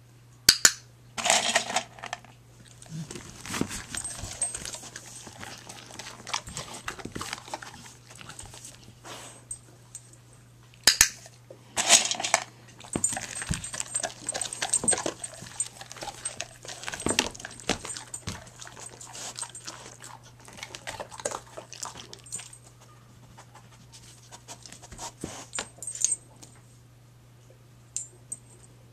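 Dog eating dry kibble off a wooden floor: irregular crunching and clicking, with a few louder sharp clatters.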